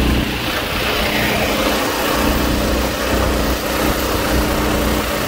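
Mudskipper 16 hp 420cc single-cylinder longtail mud motor running with the boat under way, its engine note mixed with a steady rush of prop wash and spray.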